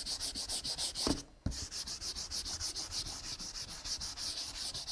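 A palm rubbing soft pastel into the paper, blending the colour bands. It makes a fast back-and-forth swishing, about six or seven strokes a second, with a brief break about a second in.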